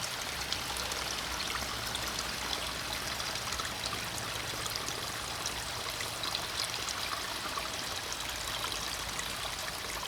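A shallow stream running over rocks, splashing and trickling where it drops at several different heights. It makes a steady, even rush full of small bubbling splashes.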